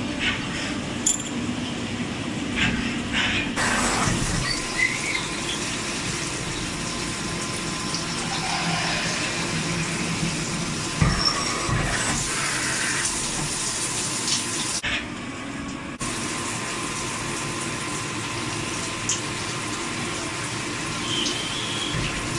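CNC automatic lathe machining, with cutting coolant splashing and running steadily and a few sharp clicks of the machine's tooling.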